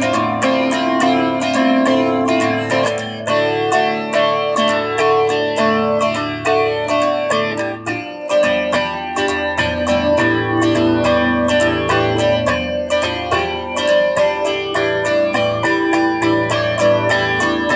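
Solo guitar playing an instrumental melody, single notes picked over ringing chords with a steady, even pulse.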